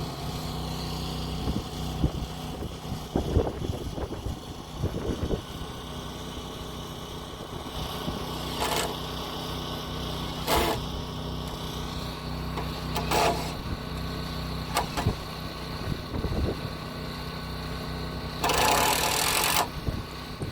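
A small motor running steadily, with several sharp knocks and a short burst of hiss near the end.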